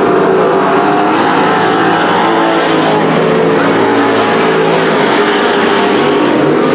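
Street stock race car engines running hard around a dirt oval, several at once. Loud and steady throughout.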